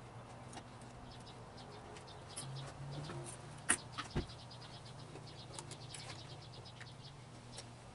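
Faint clicks and taps of a screwdriver and screws as the cover is taken off the milling machine's speed-control box, with one sharper click and a low thump about four seconds in and a quick run of small ticks near the two-thirds mark. A steady low hum lies under it.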